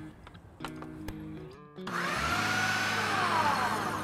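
Countertop blender switching on about two seconds in and running at full speed, its motor whine shifting in pitch as it purées a thick avocado-poblano mayonnaise sauce.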